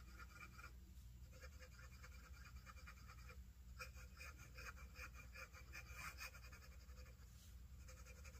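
Faint scratching of a #6 Jowo medium steel fountain pen nib moving across paper as loops are drawn. It comes in about four runs of quick strokes with short pauses between.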